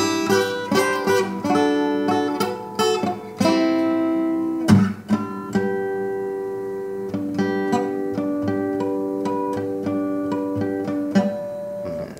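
Steel-string acoustic guitar played solo, picked chord notes and strums left to ring. The loudest strum comes a little over a third of the way in, and a last strum near the end is left to die away.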